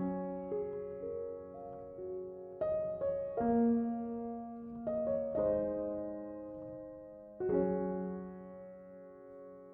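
Slow, gentle piano music: soft chords struck every second or two, each left to ring and fade away.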